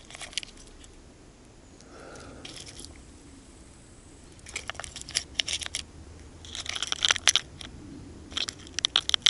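Crackling, crinkling handling noise in several short bursts of sharp crunches, from fishing tackle being rummaged through and handled while a lure is swapped.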